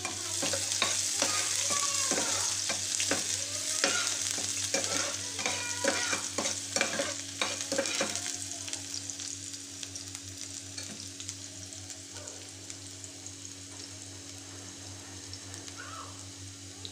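Chopped onion sizzling in hot mustard oil in a metal pan while a spoon stirs it, scraping and knocking against the pan. About eight seconds in the stirring stops, and the frying goes on as a quieter, steady sizzle.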